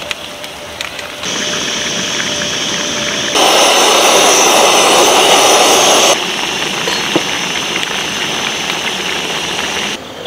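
French fries deep-frying in a pot of hot oil, a steady sizzle that steps up abruptly about a second in, is loudest for nearly three seconds in the middle, then drops back and cuts off near the end.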